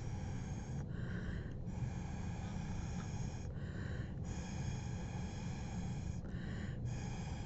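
Breath blown through a drinking straw onto wet watercolor paint in long steady puffs of air, broken three times by short inhales.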